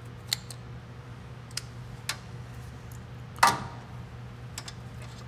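Small metal clicks and clacks of hand wire-crimping pliers being handled on a wire terminal, with one louder clack about three and a half seconds in, over a steady low hum.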